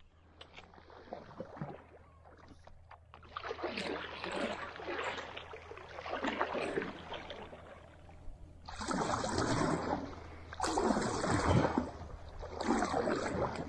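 Kayak paddle strokes swishing and splashing through calm water, roughly one stroke every two seconds, starting about three seconds in and growing louder in the second half.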